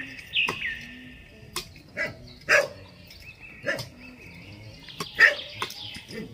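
A dog barking in several short, separate barks at irregular intervals, the loudest about five seconds in.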